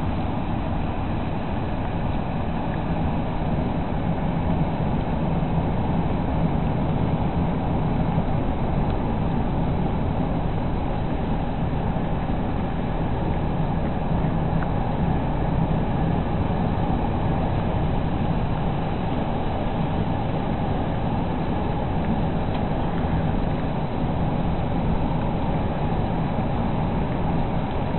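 Steady road and engine noise of a car driving on a highway, heard from inside the cabin: a constant low rumble with no breaks.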